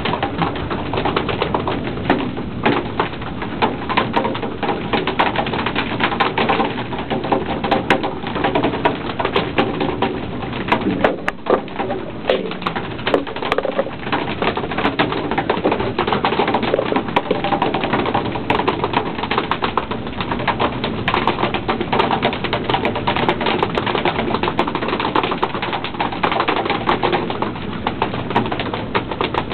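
Continuous noise of sea water splashing at a fishing boat's side during albacore pole fishing, with frequent sharp irregular taps and clatters from the deck.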